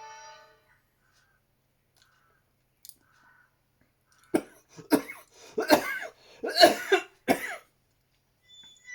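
A person coughing: a fit of about five loud coughs in a row over some three seconds, starting about four seconds in.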